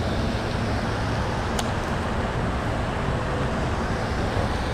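Steady rushing of water from the pond's spray fountains and waterfall, with one short click about a second and a half in.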